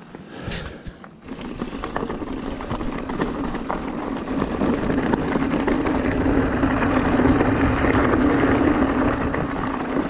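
Mountain bike rolling fast downhill, with tyre noise, small rattles and wind on the camera microphone, growing louder as the speed builds. A steady hum sets in about halfway through.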